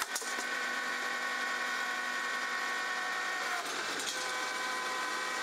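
Tractor PTO driving the hydraulic pump of a Balfor A18 C vertical log splitter: a steady mechanical whine made of several even tones, with a sharp click at the start. The sound shifts briefly a little under four seconds in, as the log splits.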